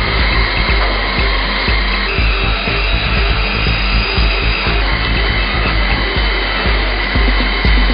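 Doosan DHF 8000 CNC milling machine running with a steady motor-like noise and a high whine that steps to a new pitch about two seconds in and again about five seconds in.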